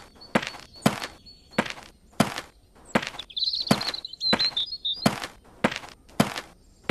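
Cartoon footstep sound effects: boot steps landing one after another in a steady walking rhythm, about two a second.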